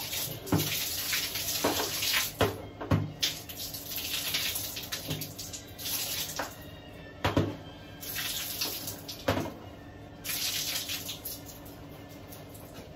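Water from a tap running and splashing in spells that start and stop, with several sharp knocks of things being handled in the wet.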